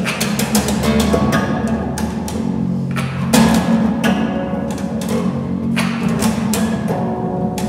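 Fretless acoustic bass guitar played percussively: sharp, irregular string slaps and strikes over sustained low notes, each hit trailing off in the heavy reverberation of an underground hole.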